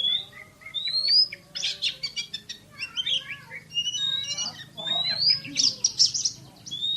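Oriental magpie-robin (kacer) singing a fast, tightly packed song. Short rising whistled notes alternate with rapid rattling strings of notes in the 'tembakan' (gunfire) style.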